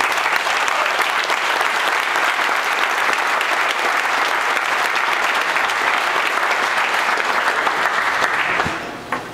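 A large crowd applauding, steady dense clapping that dies away near the end.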